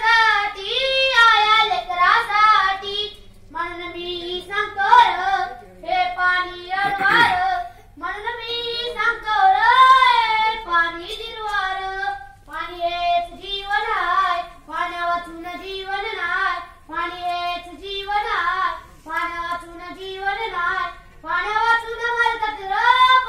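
A boy singing solo without accompaniment, one sustained melodic line after another, with short breaths between phrases.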